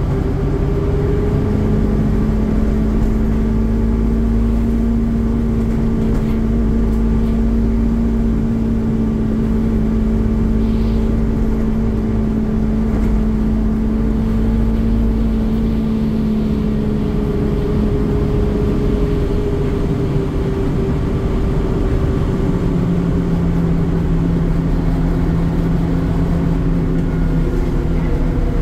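Scania N230UD Omnicity double-decker bus's five-cylinder diesel and drivetrain heard from inside the passenger saloon while the bus is under way: a steady low drone with a held hum that drops to a lower pitch a little past halfway.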